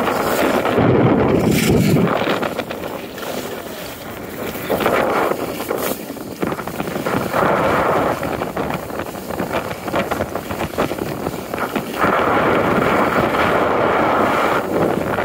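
Skis hissing and scraping over packed snow while wind buffets the microphone as the filmer skis downhill. The rush swells about a second in and again from about twelve seconds.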